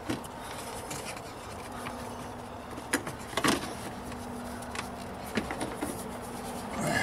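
Hands working at a stuck hose fitting in a car's engine bay: scattered clicks, knocks and rubbing of plastic and rubber parts, a few sharper knocks about three to three and a half seconds in. A faint steady hum lies underneath through the middle.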